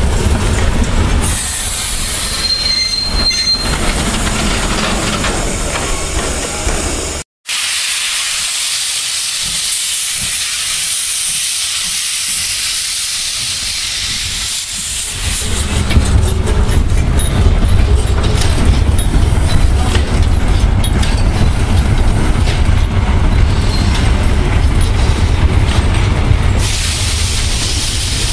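Steam train in motion beside the track: carriages rolling with a short high wheel squeal early on, then the steam locomotive 33-037 hissing steam and running, the noise growing louder and fuller about halfway through as it comes close. The sound cuts out for an instant about seven seconds in.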